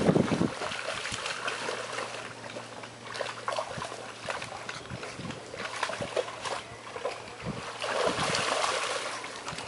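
Dogs wading through shallow pond water: a bullmastiff and a second dog sloshing and splashing with their legs, in short irregular splashes, a little busier about eight seconds in.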